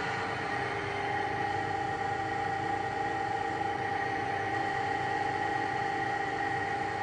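A 2006 Runmaster RUN-330x1000RR precision tool-room lathe running with its lead screw engaged: a steady motor-and-gear hum with a constant whine.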